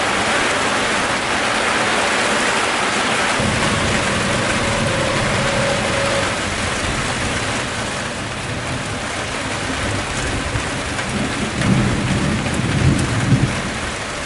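Summer thunderstorm: steady rain hissing down, with thunder rumbling in about three seconds in and swelling to its loudest near the end.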